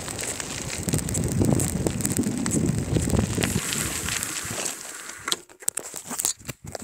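Bicycle riding down a gravel track: wind buffeting the handlebar-mounted phone's microphone over tyre rumble and rattling, fading about five seconds in to scattered crackles and clicks as the bike slows.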